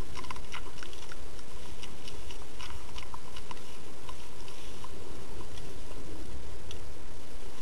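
A doe chewing close to the microphone: irregular crunching clicks, thick in the first few seconds and sparser later, over a steady low rumble.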